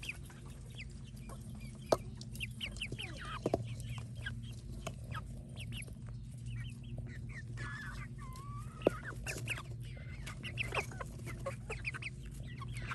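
Hens clucking and giving short calls while feeding, with frequent sharp clicks of beaks pecking against a stainless steel bowl.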